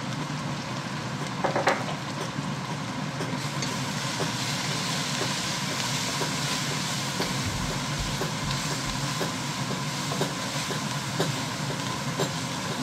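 Fish cutlets frying in hot oil: a steady sizzle with scattered small pops.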